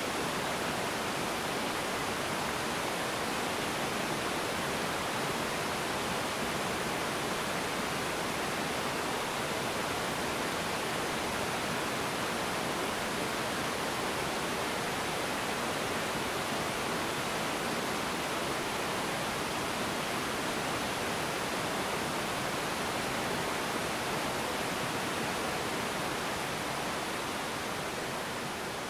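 Small river waterfall: a steady, even rush of white water pouring over rocks, fading away near the end.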